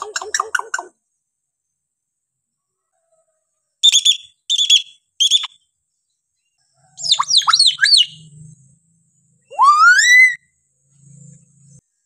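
Hill myna calling: a quick run of notes at the start, three short loud calls about four seconds in, a jumble of falling notes around seven seconds, then one long rising whistle near the end.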